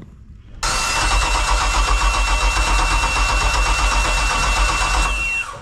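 Boat's 5.7 MerCruiser engine running under way, with heavy wind rush on the microphone; it starts suddenly about half a second in and drops away just before the end. A steady high-pitched tone sounds over it and slides down in pitch as the sound fades.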